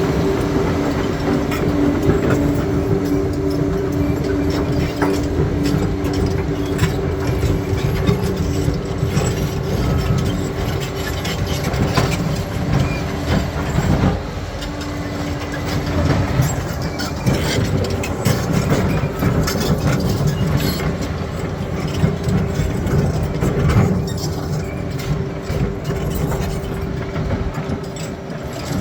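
Crawler bulldozer working over stony ground: its diesel engine runs steadily under load, with the steel tracks clanking and rocks scraping and knocking throughout.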